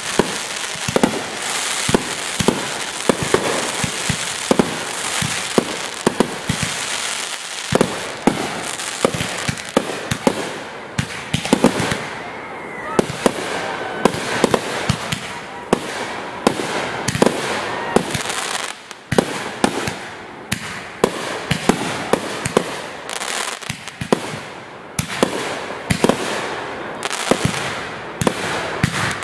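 A fireworks display: aerial shells and salutes bursting in rapid succession, dozens of sharp bangs over a continuous crackle.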